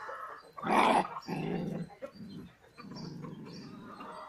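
Pandikona puppies play-fighting, growling in low, rough stretches, with one short, sharper yap about a second in.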